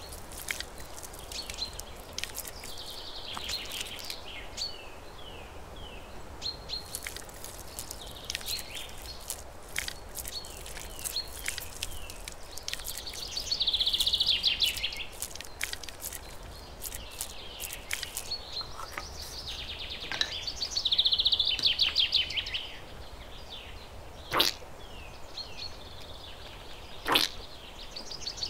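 Birds chirping, with short calls repeating and several longer buzzy trills, the loudest about halfway through and again near the end. Scattered light clicks and taps sit under them, two of them sharper late on.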